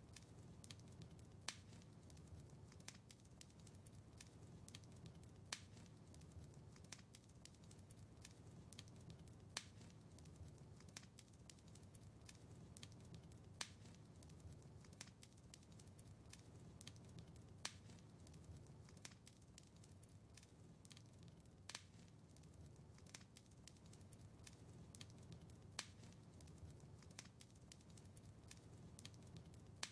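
Wood fire crackling faintly: many small snaps and ticks over a low steady rumble, with a louder pop about every four seconds.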